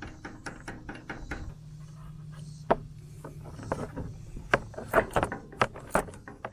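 Light metal clicks and taps as a locking nut is run onto a brush hog's replacement shear bolt and tightened: quick, fairly regular clicking at first, then louder, scattered clicks in the last couple of seconds.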